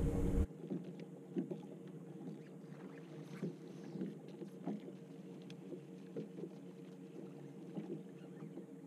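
A steady low hum with scattered light taps and knocks on a small fishing boat, after a louder sound cuts off abruptly about half a second in.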